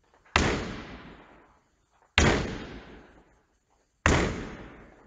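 A netball slapping against a wall in chest passes, three times about two seconds apart. Each strike echoes and fades through a large sports hall.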